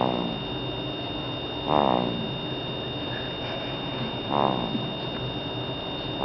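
A sleeping baby snoring: short pitched snores on each breath, about every two seconds, three times.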